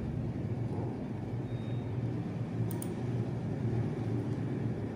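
Steady low background hum, with a couple of faint clicks a little under three seconds in.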